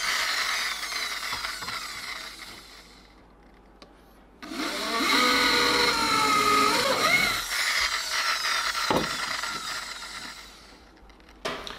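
Electric hand drill boring through a flat steel strip, running in two stretches: the first fades out about three seconds in, and after a short pause the drill starts again at about four and a half seconds and runs under load, its pitch wavering, until about ten seconds in.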